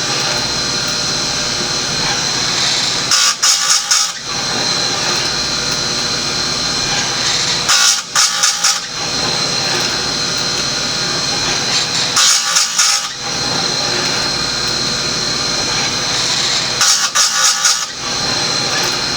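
Electric Oregon bench chainsaw sharpener running steadily with a high whine. About every four and a half seconds the grinding wheel is brought down onto a chain cutter, giving a second-long chattering grind, four times in all: each cutter is being sharpened in turn.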